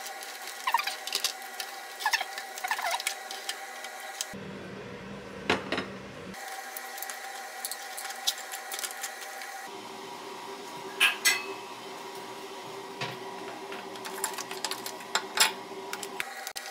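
Wet crackling and sharp snaps of soy-marinated raw crab shells and legs being cracked and pulled apart by hand, in irregular bursts with a few loud cracks. Soft background music with held chords plays underneath.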